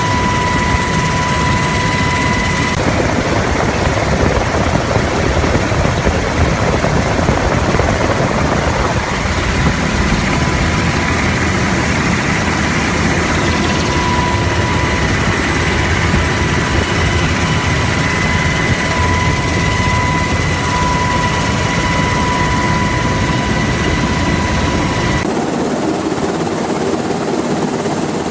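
Black Hawk helicopter running: dense, steady rotor and engine noise with a steady high tone over it. Near the end the sound changes abruptly to a thinner, quieter recording with little low rumble.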